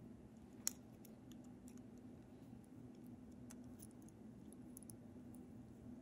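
Faint small clicks of a small flathead screwdriver working the tiny screws that hold the motor plate of a Märklin DCM motor, with one sharper click about a second in, over a low steady hum.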